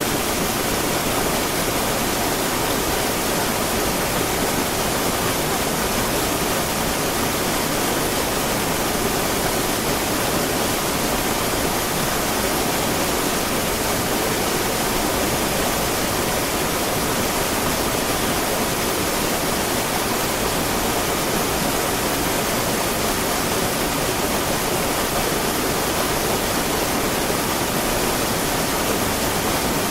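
River water flowing steadily: a continuous, even rush of current.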